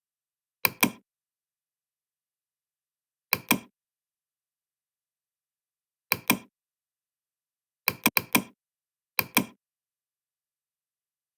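Sharp clicks in quick pairs, five groups a few seconds apart, the fourth a rapid run of three or four, with dead silence between.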